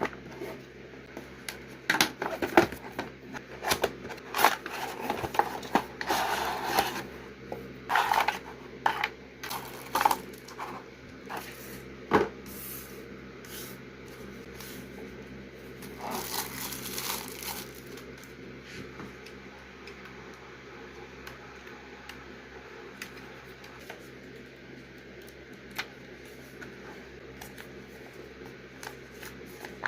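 Handling of a gaming mouse's box and packaging being unboxed: irregular knocks, scrapes and rustles, busiest in the first half and thinning out to occasional ticks after about 18 seconds, over a steady low hum.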